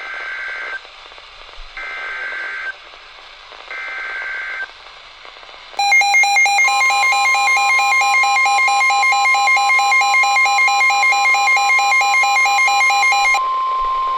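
Weather radio emergency alert tones: three short screechy data bursts of the SAME alert header, about a second apart. Then a loud, harsh warbling alarm tone sounds together with the steady long beep of the weather radio warning alarm tone. The warble cuts off near the end while the steady beep carries on.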